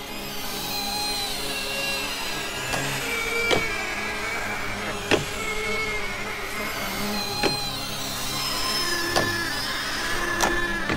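Electroacoustic soundtrack built from processed recordings of real sounds: short held tones at shifting pitches over a steady low hum, cut by sharp clicks every second or two.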